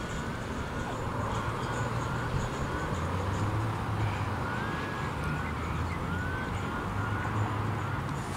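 Outdoor storm ambience: a steady low rumble that swells about a second in, with a few short chirps above it.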